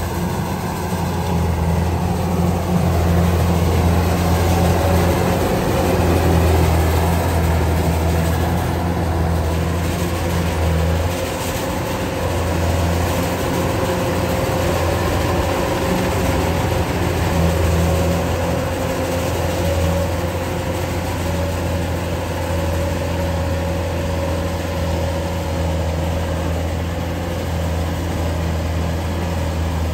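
Kubota DC-105X combine harvester running steadily as it cuts and threshes rice: a deep, even engine drone with a steady higher hum from the machinery.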